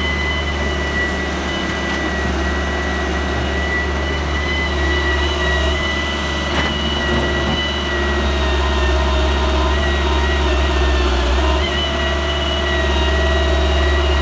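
A heavy machine's diesel engine running steadily, with a steady high whine over it.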